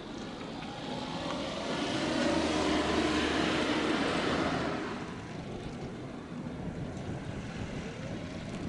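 A vehicle passing by: its noise swells for about two seconds, peaks around three seconds in, and fades by about five seconds in, leaving a steady outdoor background.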